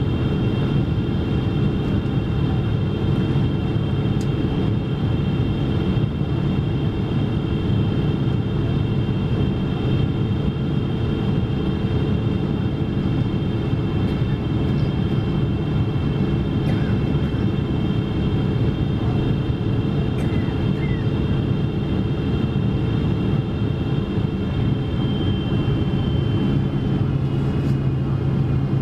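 Boeing 777 cabin noise beside the wing: its GE90 turbofan engines running steadily, a dense rumble with a thin high fan whine over it. Near the end the whine steps down slightly in pitch and a low hum grows stronger, a change in engine thrust.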